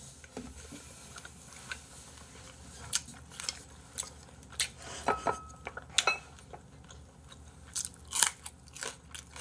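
Close-miked mouth sounds of a man eating: irregular wet chewing, smacking and crunching clicks. Near the end they include a bite into a green chili pepper.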